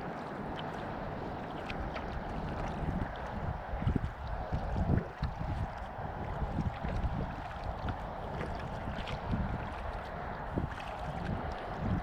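Kayak paddle strokes in calm lake water: the blades dip and pull through the water, with splashing, dripping and gurgling along the hull. Irregular low thuds come through, loudest about four and five seconds in.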